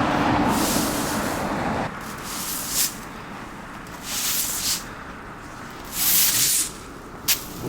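A broom sweeping snow off the pavement: short hissing swishes, a stroke every second or two. The steady rush of a passing vehicle comes first and fades after about two seconds.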